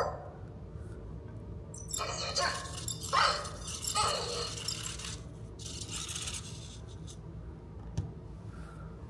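Emo desktop robot being handled: small plastic clicks and a rattling of its body and moving legs as it is lifted from its charging dock and held, then a tap as it is set down on the table about eight seconds in.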